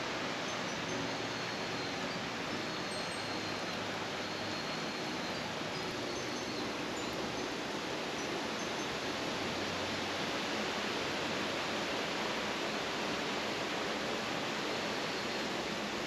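Steady rushing of a mountain stream, with a few faint high tones over it.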